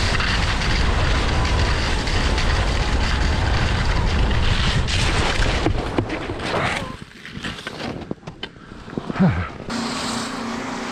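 Wind buffeting the microphone and skis scraping over snow on a downhill run, which drop away about six seconds in. A few sharp knocks follow, and near the end a steady low hum starts.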